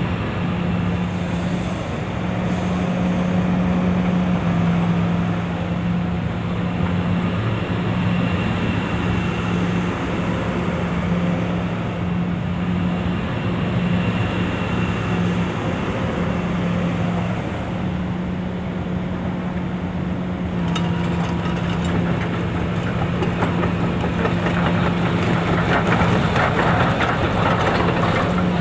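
Hitachi EX355 demolition excavator's diesel engine running steadily with a deep hum. About two-thirds through, a dense clatter of clicks and knocks joins it and grows louder toward the end.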